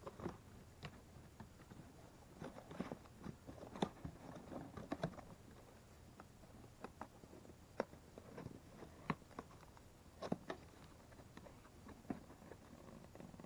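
A cardboard box being closed by hand: flaps folded down and pressed shut over plastic-wrapped contents, giving irregular crinkles, rustles and light knocks.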